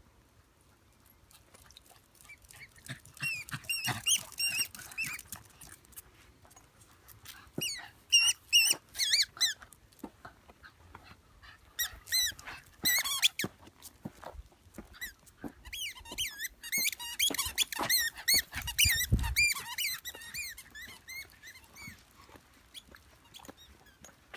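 Squeaky ball toy chewed by a Parson Russell terrier: rapid, wavering high squeaks in about four bouts, the longest in the second half.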